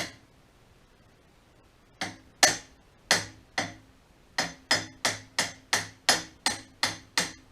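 A steel hammer striking a punch to drive a pin out of a Cub Cadet 1200 tractor's driveshaft: one sharp metal blow, a pause of about two seconds, then a steady run of about a dozen blows at roughly three a second, each ringing briefly. The pin is stubborn and hard to get out.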